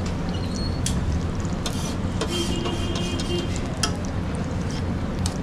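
Steady low rumble of busy street noise, with a few sharp clinks scattered through it and a brief steady high tone a little past the middle.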